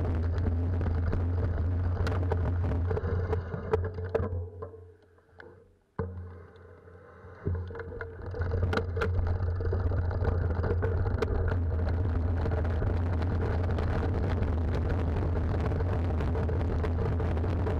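Wind rumbling on the microphone of a camera riding on a mountain bike over a gravel track, with clicks and rattles from the bike and stones under the tyres. The noise dies away for a couple of seconds near the middle, then comes back steady.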